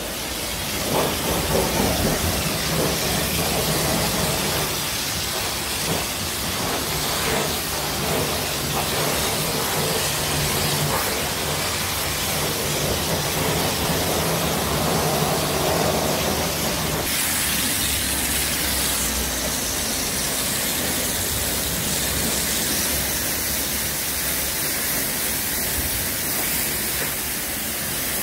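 Car-wash pressure washer's foam lance spraying snow foam onto a car body: a steady hiss of spray, its tone shifting about two-thirds of the way through.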